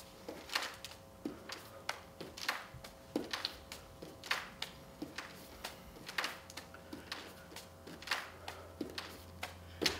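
Soft hand taps from plank shoulder taps: palms patting the shoulders and setting back down on a wooden floor, about two a second and a little irregular.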